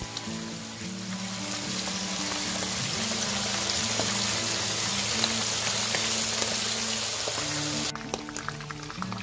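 Whole Chinese minnows frying in a shallow pool of hot oil over high heat: a dense, steady sizzle that thins about eight seconds in to scattered pops and crackles. Background music plays underneath.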